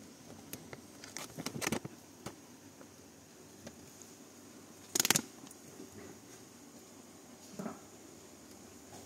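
Plastic dog-treat pouch handled, giving a few short crinkles: a cluster about a second and a half in, a louder one about five seconds in, and a softer one near the end.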